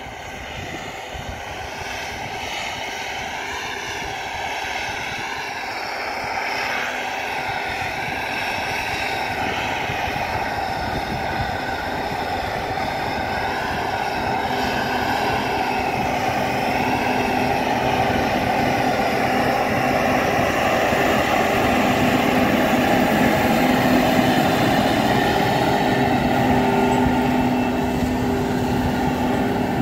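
T-150K tractor's YaMZ-236 V6 diesel running steadily under load while pulling a field cultivator, growing steadily louder as the tractor approaches.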